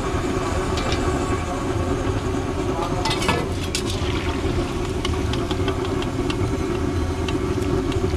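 Batter-coated coriander chops deep-frying in a large wok of oil, a steady bubbling over a constant low rumble. A perforated metal skimmer clinks and scrapes against the wok a few times, most around three seconds in.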